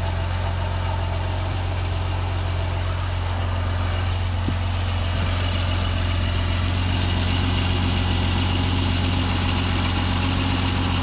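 MerCruiser inboard boat engine idling steadily, run on a hose for cooling water, with its belts and pulleys turning. A freeze plug has popped out of the bottom of the engine block and cooling water is leaking from it, the leak caused by improper winterizing.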